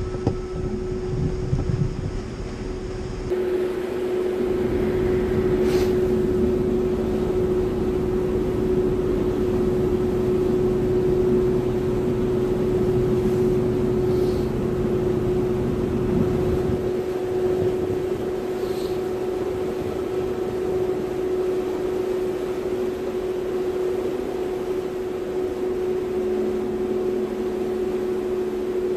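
Commuter river ferry's engines running with a steady hum on one constant pitch, over a bed of noise. Wind rumbles on the microphone for the first half or so, then eases.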